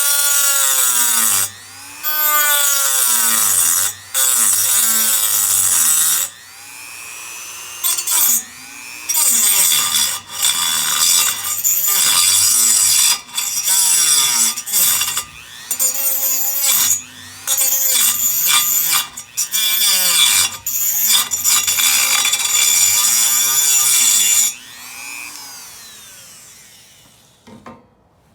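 Handheld power cutting tool cutting through a metal frame bar in repeated bursts, its motor pitch dipping under load and climbing back between cuts. It winds down and stops near the end.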